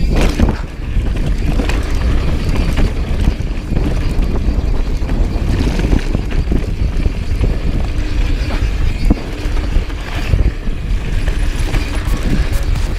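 2018 Rocky Mountain Instinct mountain bike descending a rough dirt trail at speed: a steady rumble of tyres over dirt and rocks with frequent sharp clatters from the chain and frame.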